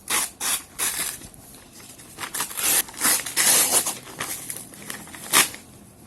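Cardboard packaging being torn and rustled open by hand: several short tearing and crinkling noises, the sharpest about five seconds in.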